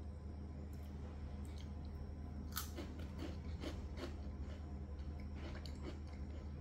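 A crisp chocolate-dipped biscuit stick being bitten and chewed: a run of dry crunches starting about two and a half seconds in, roughly two a second, the first bite the loudest.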